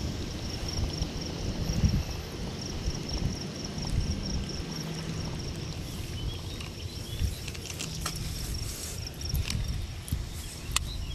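Insects chirping in a steady, high, pulsing trill, over a low rumble of wind on the microphone, with a few sharp clicks near the end.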